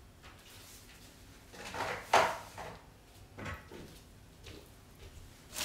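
Refrigerator being loaded and shut: a sharp clunk about two seconds in as groceries go onto the fridge shelves, then a softer knock as the fridge door closes.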